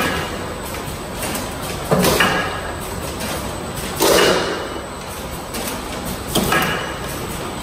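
Automatic bottle filling and capping line running, with a clunk and a hiss of air about every two seconds, three times, as its pneumatic stations cycle on each bottle.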